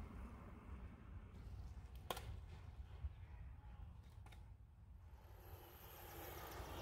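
Near silence: a faint low rumble of background noise, with two short clicks about two seconds apart.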